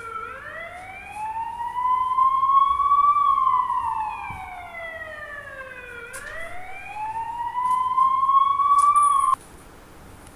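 A siren wailing in slow sweeps, rising for about three seconds and falling for about three, then cut off suddenly about a second before the end.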